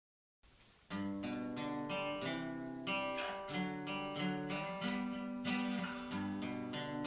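Instrumental intro of a folk-rock song: a steel-string acoustic guitar strumming chords over an electric bass guitar playing low notes, coming in sharply about a second in.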